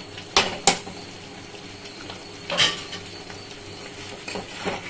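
Metal strainer and spatula clinking against a kadai as soaked paneer cubes are added to the curry: two sharp clinks in the first second, a louder one about halfway, and a few lighter taps near the end.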